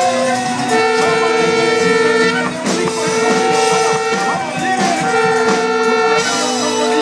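Live church worship music: long held melody notes over a fast Latin-style rhythm from conga drums, with tambourines shaken and struck by the dancers.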